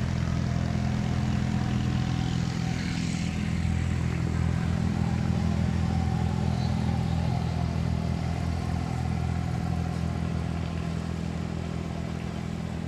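Motorboat engine running steadily with a low hum, gradually getting a little quieter near the end.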